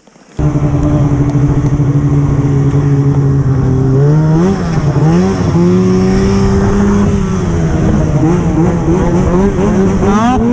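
Two-stroke snowmobile engine, loud and close, cutting in suddenly and running at a steady pitch, then revving up and down repeatedly from about four seconds in.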